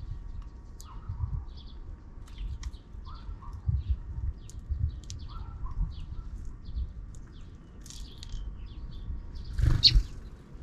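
Sparrows chirping: a scatter of short, high chirps over a low background rumble, with a louder rustling burst a little before the end.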